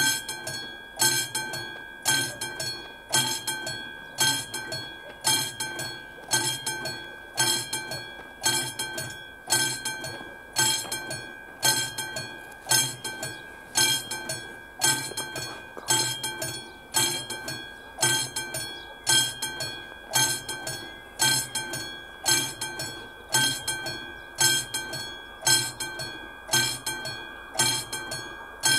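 Level-crossing warning bell of an AŽD 71 crossing signal, a classic mechanical bell, ringing steadily in quick metallic strokes that come in pulses about once a second: the crossing is warning that a train is approaching.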